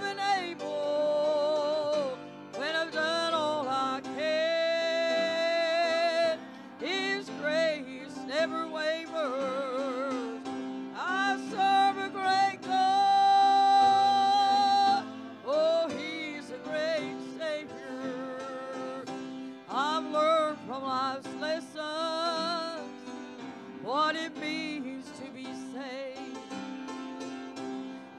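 Gospel singing with instrumental accompaniment: one voice holding long notes with vibrato over a steady instrumental backing.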